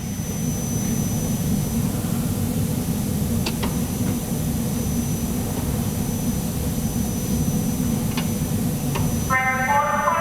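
Steady low rumble, with a few faint, isolated clicks; background music comes in near the end.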